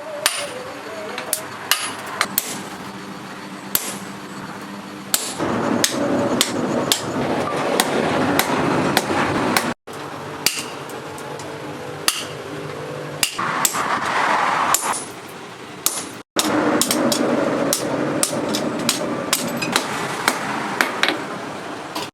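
Blacksmith's hammer striking leaf-spring steel on an anvil, sharp metallic blows at an irregular pace of about one or two a second over a steady background noise. The sound cuts out briefly twice.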